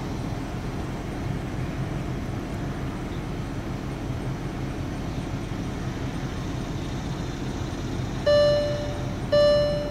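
Steady low rumble of the car around the microphone. About eight seconds in, music starts from the car's speakers as the stereo plays a track through its CD-changer input: a held note, repeated about once a second.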